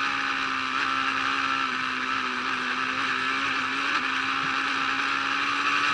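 Onboard sound of a BMW sports motorcycle at about 85 mph: the engine holds a steady note under a heavy rush of wind noise.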